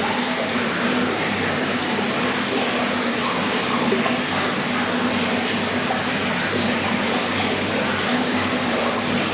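Water pouring steadily into an aquarium tank from an inflow pipe, splashing and bubbling at the surface. A low hum sits underneath, stronger at the start and again near the end.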